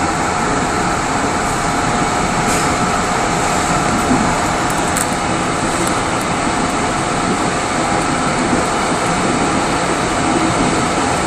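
Running noise inside a Mugunghwa passenger coach at the rear of a moving train: a steady rumble of wheels on rail with a faint even hum and a few light ticks.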